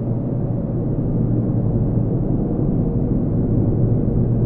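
Steady road and engine rumble of a car travelling at highway speed, heard from inside the cabin through a dashcam microphone.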